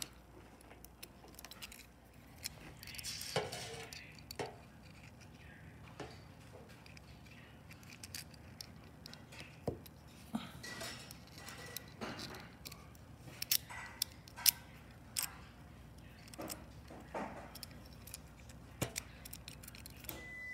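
Irregular small metallic clicks and clinks of a homemade steel trigger assembly being worked by hand, its lever and parts snapping and rattling as they move.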